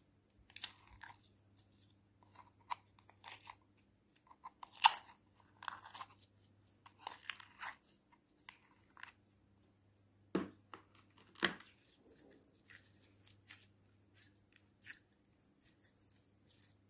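Glossy slime being pulled by hand out of the compartments of a plastic tray, giving irregular sticky, wet crackles and clicks, with two duller knocks a second apart just past the middle.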